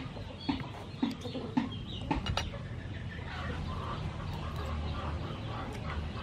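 A series of short low calls about every half second, with a few sharp clinks of metal spoons against a plate about two seconds in.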